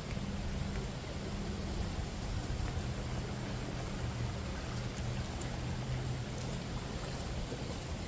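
Fast-flowing floodwater of a swollen creek rushing past, a steady rushing noise with a strong low rumble underneath.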